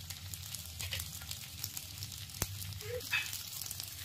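Idlis sizzling on a hot pan: a soft, steady crackle of frying, with one sharp click a little past halfway.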